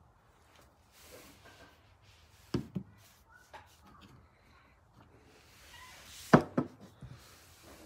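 Handling noise and knocks from a drinking glass moved about close to the microphone: a sharp knock about two and a half seconds in and a louder one about six and a half seconds in, with a few softer clicks between.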